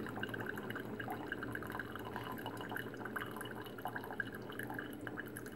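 iCoffee single-serve pod coffee maker brewing: a thin stream of coffee trickling and dripping into a ceramic mug, steady and faint, over a low hum.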